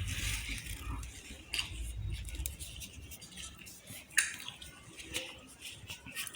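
Scattered light clinks and clicks of cutlery and a plate during a chicken meal, the sharpest click about four seconds in.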